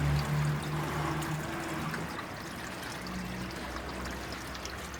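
Steady trickle of running water, with a low hum that fades about two seconds in.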